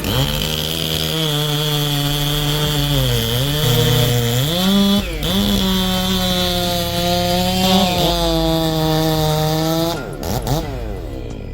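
Chainsaw engine running at high revs while cutting wood, its pitch sagging twice as the chain bogs in the cut and then picking back up. Near the end the revs rise and fall as the throttle is worked.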